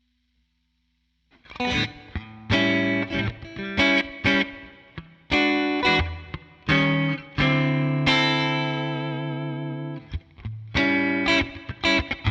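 Electric guitar with Zexcoil Legacy Signature P90-style pickups, played clean straight into a Helix Twin Reverb amp model: after about a second of silence, picked notes and chords, with one note left ringing for about two seconds in the middle.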